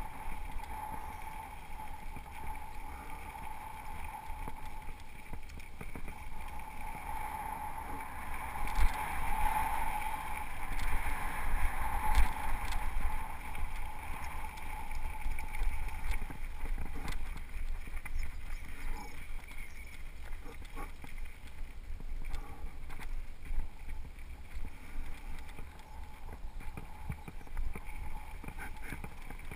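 Mountain bike rolling fast down a rough gravel singletrack, heard from a camera mounted on the bike or rider: a steady rush of tyre and trail noise with frequent rattles and knocks from bumps, loudest about nine and twelve seconds in.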